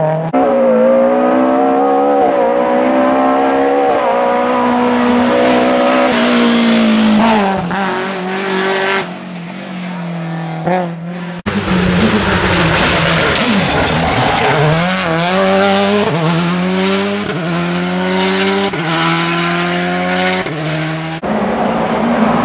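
Rally car engines revving hard, the pitch climbing and then dropping again and again with each gear change. The sound breaks off abruptly about eleven seconds in, and another car takes over at full revs.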